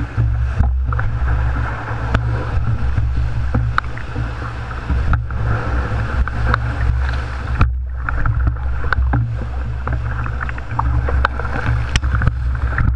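Big whitewater rapid roaring around a rowed boat, with frequent sharp slaps of waves against the hull. Spray comes over the bow near the end.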